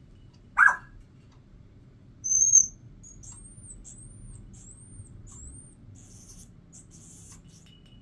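Congo African grey parrot calling: a short sharp squawk about half a second in, a loud high whistle about two seconds in, then a quick run of about five high chirps, each rising and falling in pitch.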